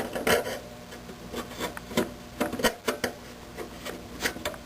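Short scrapes and rubs, about a dozen at uneven intervals, as a furnace pressure switch is handled and fitted against its mounting.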